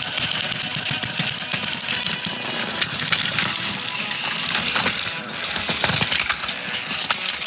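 Battery-powered toy train motors whirring, with wheels and plastic bodies rattling and clicking on plastic track as two engines push against each other.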